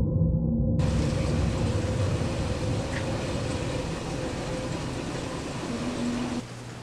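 A steady low rumble with a hiss over it, which starts suddenly about a second in and cuts off near the end. A low drone fades slowly underneath.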